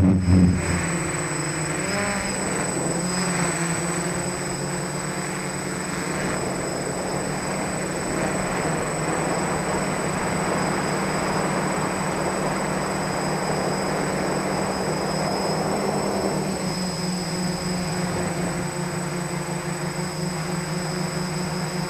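F450 quadcopter's four SunnySky 980KV brushless motors spinning 10-inch (1045) propellers in flight: a steady hum and whir with rushing air, heard from the camera on the craft. The motor pitch wavers in the first few seconds, then holds steady, with a thin high whine over it.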